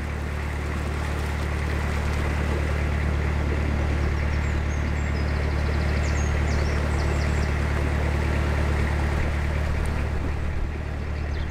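Narrowboat engine running steadily, a low even drone, while the boat is under way. A few faint bird chirps come through in the middle.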